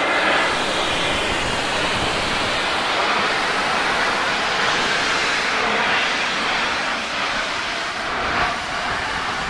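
Steady hiss of steam blowing from the open cylinder drain cocks of an LNER class A4 Pacific steam locomotive as it moves slowly away.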